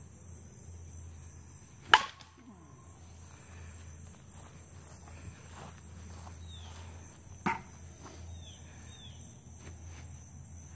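Softball bat hitting a ball off a batting tee twice: a loud sharp crack with a short ringing tone about two seconds in, then a quieter hit about five and a half seconds later. Faint bird chirps come between the hits.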